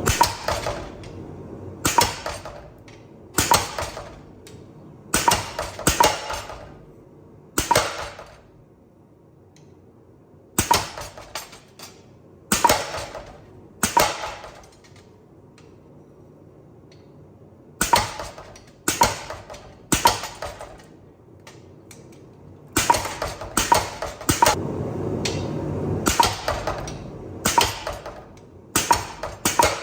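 Hammer blows on steel at an anvil: single ringing metal strikes about a second or so apart, in runs broken by short pauses. A steady rushing noise sits under the strikes near the end.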